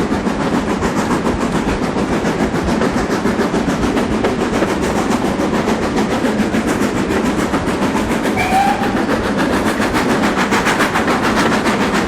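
Steam-hauled passenger train running along the line: a steady rumble of wheels on rail with a fast, even clatter. A brief faint high tone sounds about two-thirds of the way through.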